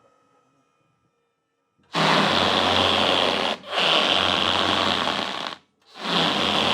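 An electric car's tyres screeching on a painted car-park floor: silence, then three long squeals, the first two nearly joined and the third starting near the end.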